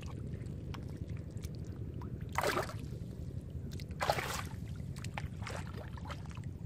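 A fish thrashing in a shallow muddy channel, splashing twice, about two and a half and four seconds in, with a few small splashes after, over a steady low rumble.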